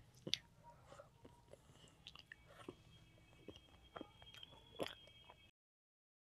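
Faint close-up chewing and wet mouth clicks and smacks of a child eating rice and curry with his fingers. It cuts off to silence near the end.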